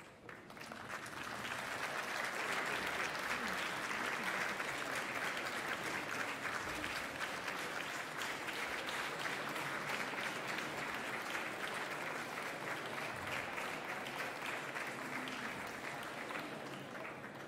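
Audience applauding: the clapping swells up over the first two seconds, holds steady, and thins out near the end.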